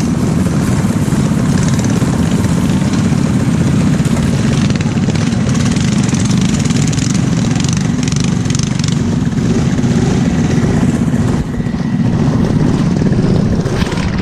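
Small single-cylinder minibike engines idling close by, a steady small-engine running sound.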